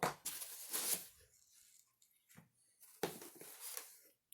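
Packaging being handled as parts come out of the box: two spells of rustling and crinkling, one at the start and one about three seconds in, with a quiet gap between.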